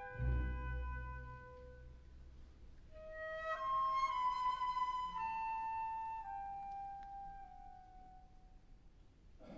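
Solo flute playing a slow, falling melody over a hushed orchestra, the line fading away near the end. It comes after a soft low orchestral note at the start.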